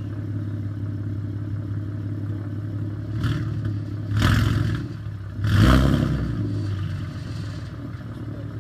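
Car engine running on freshly fitted long-tube headers: a steady idle, blipped three times about three, four and five and a half seconds in, the last rev the loudest, then settling back to idle.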